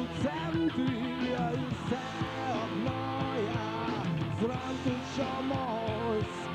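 Rock song played by a band: a male lead voice sings over electric guitar and band accompaniment.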